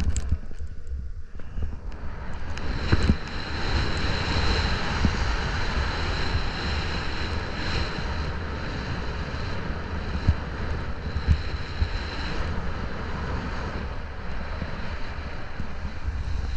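A vehicle's engine running steadily while on the move, with gusty low rumble of wind on the microphone and a few short knocks.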